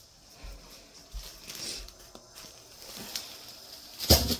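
Soft footsteps and rustling as a phone is carried by hand, with a sharp knock about four seconds in.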